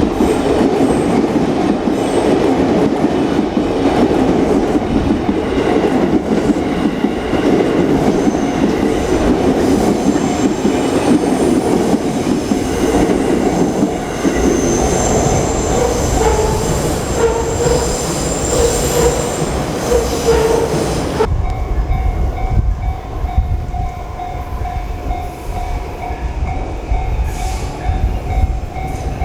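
An electric train running past at close range through a level crossing, with a loud steady clatter and rumble of wheels on rail and a wavering whine joining in about two-thirds of the way through. About 21 seconds in the train sound cuts off suddenly, leaving a low rumble and the crossing's warning bell ringing on a steady tone.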